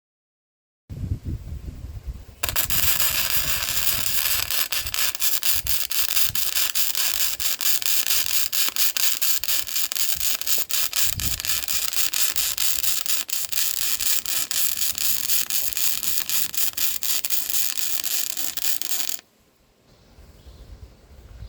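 MIG welding with a Lincoln Electric 211i: the arc strikes suddenly a couple of seconds in and runs one long, even, crackling bead for about seventeen seconds, then stops abruptly. Before it there are a few low knocks of the work being handled.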